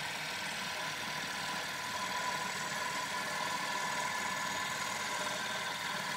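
Steady mechanical hum with a faint high whine, unchanging throughout.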